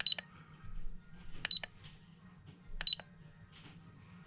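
Lipo battery checker beeping as it reads a 6S lipo pack: three short high beeps, about one every one and a half seconds.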